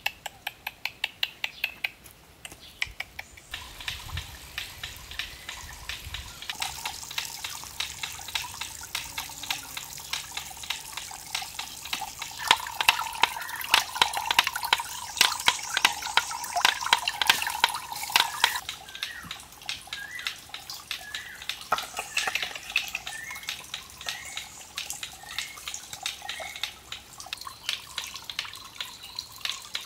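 Water trickling and splashing into a small garden pond from a rock cascade, full of small drips and splashes and loudest in the middle. It opens with a run of quick regular clicks, and a string of short rising chirps comes in over the second half.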